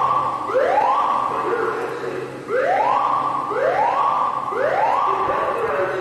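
Fire alarm sounding a whoop tone: repeated rising sweeps, each climbing and then held briefly at the top, nearly two a second, with a short lull about two seconds in.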